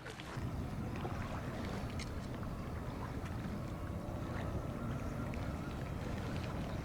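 A boat engine running with a steady low rumble and a faint steady whine above it.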